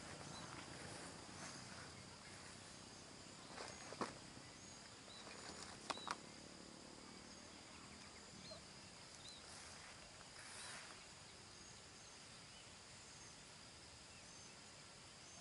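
Faint outdoor ambience: a steady high insect drone with scattered short high chirps. A sharp click about four seconds in and a quick double click about six seconds in.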